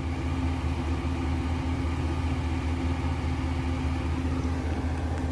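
A steady, even engine-like hum with one constant tone over a low drone, like a motor running at idle.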